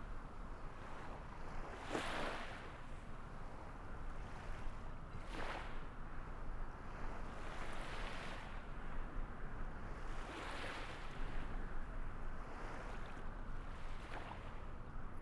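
Water waves washing in, a rushing swell rising and falling about every two to three seconds over a steady hiss.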